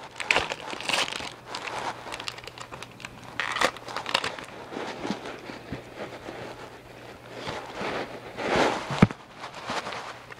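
Foil Pokémon TCG booster pack wrapper being torn open and crinkled in the hands, a busy crackling with a louder burst of crinkling near the end.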